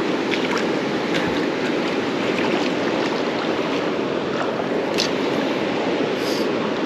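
Steady rush of stream water running over a shallow bed, with one sharp click about five seconds in.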